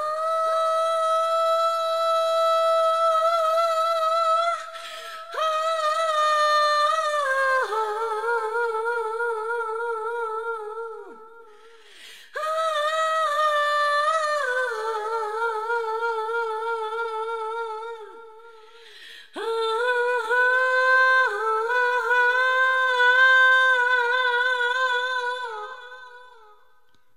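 Outro music: a solo melody of long held, wavering notes in four phrases with short breaks, each phrase stepping down in pitch, fading out near the end.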